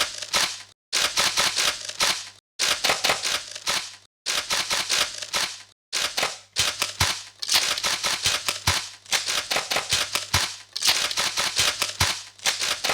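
Rapid, sharp mechanical clicking and snapping in a string of short bursts, each cut off abruptly by a brief silence, over a faint steady low hum.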